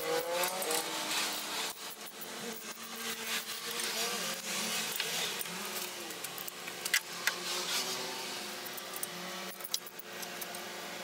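Metal hand tools and a socket wrench clinking and scraping on the exhaust manifold bolts of a Ford Pinto engine, with a few sharp metallic clicks, two close together about seven seconds in and one near the end.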